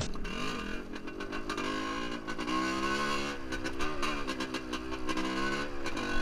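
Yamaha DT 400E's single-cylinder two-stroke engine on the move off-road, its pitch rising and falling as the throttle is opened and closed.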